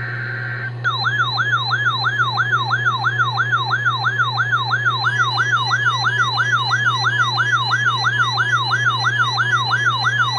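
Short raspy burst of an EAS digital header (SAME data) that ends within the first second. Then a loud electronic siren-like alert tone starts, a falling yelp that repeats about three times a second and carries on steadily.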